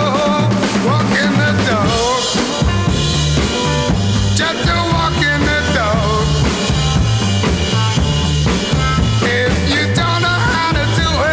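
1960s Merseybeat rock and roll record: a drum kit keeps a steady beat under bass, with a melody line above it that slides and bends in pitch.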